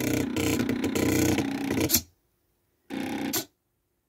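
CD-drive stepper motors buzzing as the homemade pen plotter moves the pen to draw letters: one run of about two seconds, then a short burst about three seconds in, with silence between.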